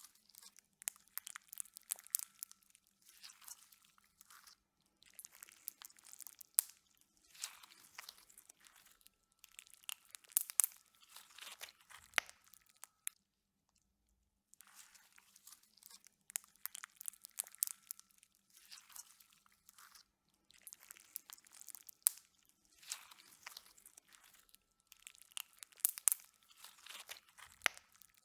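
Slime being pressed and squeezed by hand, giving crunchy, crackling pops in clusters every second or two, with a short pause about halfway through.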